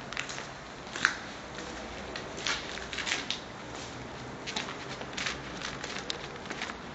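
Footsteps crunching on gritty debris, with irregular short crunches every half-second to second.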